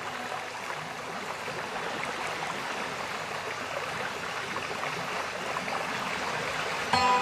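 Steady, even rushing noise like flowing water in the background soundtrack. Sustained music notes come back in suddenly near the end.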